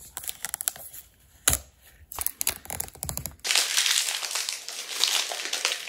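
Clear plastic shrink-wrap being opened and pulled off a handheld meter. Scattered crackles and snaps come first, then a continuous crinkling rustle from about three and a half seconds in.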